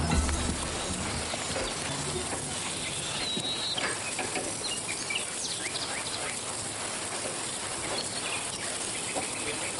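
Steady outdoor field ambience, an even hiss with a few faint bird chirps around three to four seconds in.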